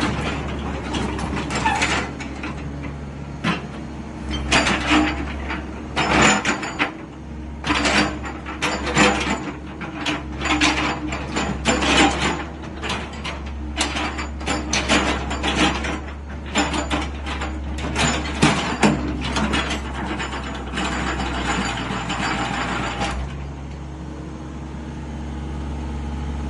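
Sany hydraulic excavator running, its diesel engine humming steadily under dense, irregular metallic clanks and rattles as the arm, bucket and blade are worked. The clatter stops near the end, leaving the engine hum.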